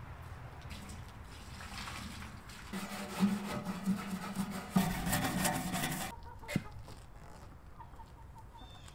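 Water running into a plastic chicken waterer as it is refilled, for about three seconds starting about three seconds in, followed by a single sharp click.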